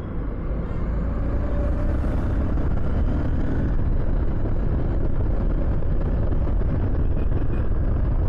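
Honda CB200X's single-cylinder engine running steadily while riding, mixed with a steady rush of wind and road noise.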